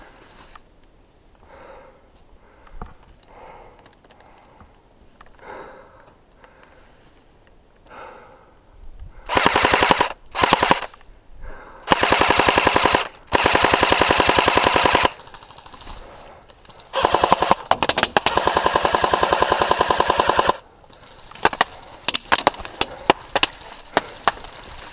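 Airsoft guns firing long full-auto bursts of rapid, evenly spaced shots, beginning about nine seconds in after a quiet spell. Longer bursts of about three seconds come midway, then scattered single shots and short bursts near the end.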